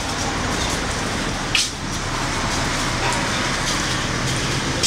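Steady street noise of cars passing on the road, with a brief sharp crackle about a second and a half in.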